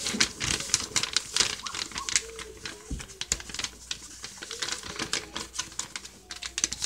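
A sheet of paper being opened out, folded and creased by hand: a rapid, irregular run of crisp crackles and taps.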